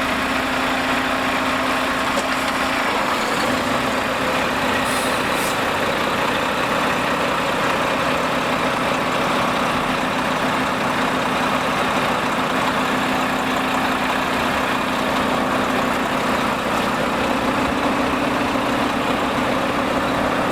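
Diesel engine of a concrete pump truck idling steadily.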